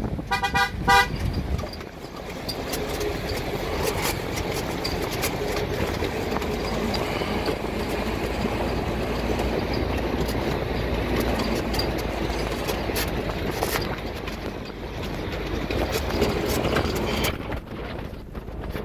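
A vehicle horn gives a rapid run of short toots in the first second. Then comes the steady running noise of a jeep on a rough gravel mountain track, with scattered knocks.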